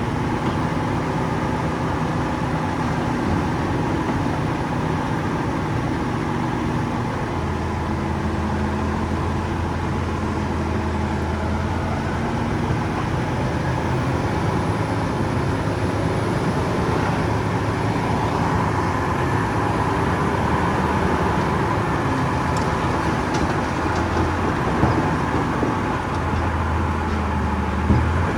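Diesel engine of heavy earthmoving machinery running steadily under work, its pitch shifting a few times, with a couple of sharp metallic clanks near the end.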